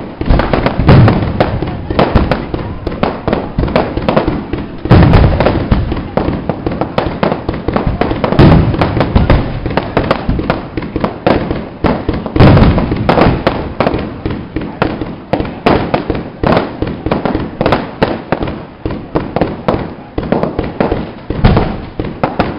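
Fireworks display: rapid, continuous crackling of many shells bursting, with heavy booms about every four seconds in the first half.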